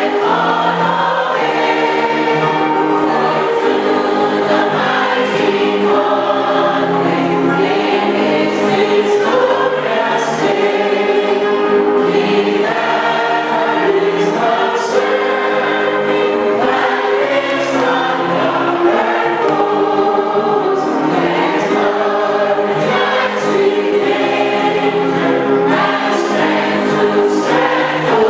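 A choir singing a gospel hymn, many voices holding long notes together in a slow, steady melody.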